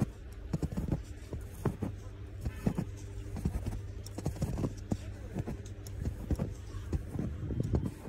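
Footsteps crunching through deep fresh snow, roughly two to three steps a second, over a steady low rumble.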